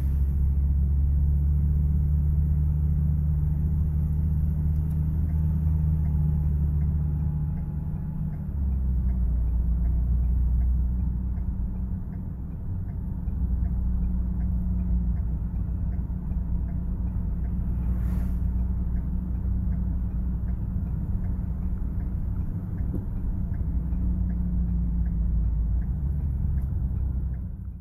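Steady low rumble of engine and road noise inside a moving vehicle's cabin while driving at road speed, easing off briefly a couple of times.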